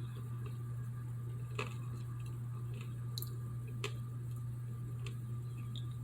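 Person chewing a Tic Tac Chewy candy, a crunchy-shelled chewy sweet: faint wet chewing and mouth sounds with a few sharp clicks, over a steady low hum.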